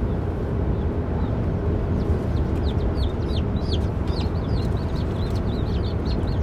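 Baby chicks peeping, many short high chirps that come thicker from about two seconds in, over a steady low rumble.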